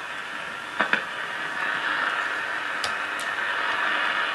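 The GE GD52 tube radio's speaker giving out a steady static hiss between stations, with sharp clicks about a second in and twice around three seconds in.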